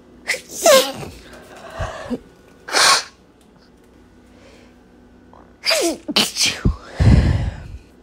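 A woman sneezing in two bouts, about three seconds in and again near the end. Each bout opens with voiced, gasping in-breaths that slide in pitch.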